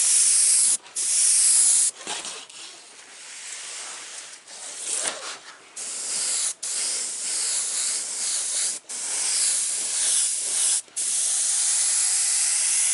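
Airbrush spraying blue paint: a high-pitched hiss that stops and starts as the trigger is let off and pressed again several times, softer and uneven for a few seconds in the middle.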